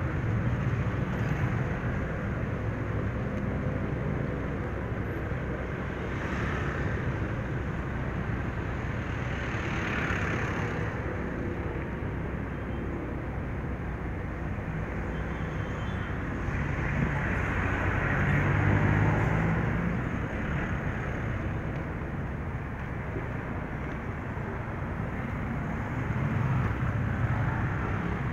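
Steady roadside traffic noise from cars, vans and motorcycles running in slow traffic, swelling a few times as vehicles pass close, loudest about two-thirds of the way through.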